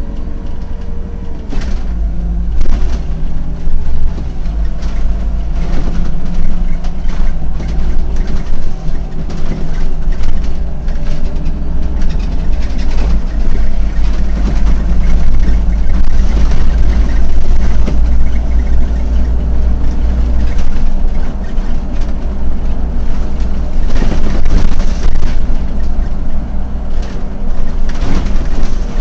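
Autosan M12LF CNG city bus under way, heard from inside the driver's cab: a steady low engine drone whose pitch rises and then drops about a second and a half in, with frequent rattles and knocks from the bus body over the road.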